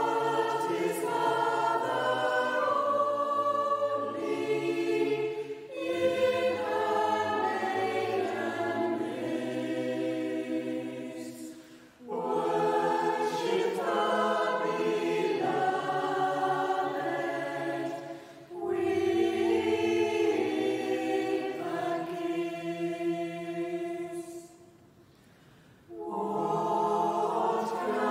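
Mixed-voice choir singing a Christmas carol unaccompanied, in phrases of about six seconds with short breaks for breath between them.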